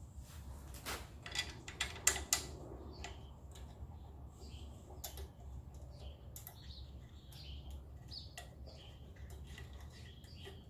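Scattered light clicks and taps of metal parts being handled as a pressure-washer pump housing is fitted and lined up on its motor. The loudest taps come about two seconds in, over a low steady hum.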